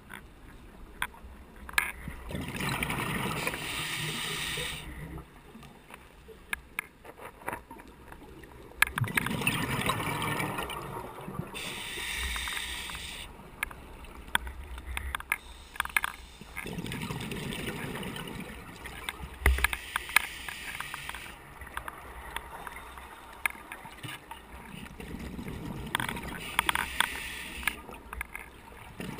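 Scuba diver breathing through a regulator underwater: slow cycles of a hissing inhalation and a low bubbling exhalation every few seconds. A rattling camera housing clicks throughout.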